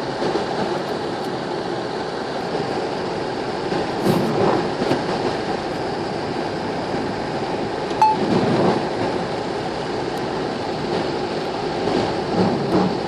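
Steady rain falling, with occasional heavier swells and a sharp clink about eight seconds in.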